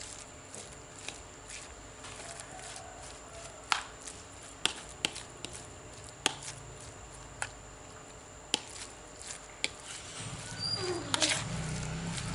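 Metal spoon stirring and mashing crumbly banana carp bait in a plastic bowl, with scattered sharp clicks as the spoon knocks against the bowl. Near the end a low hum grows louder and a couple of short falling tones are heard.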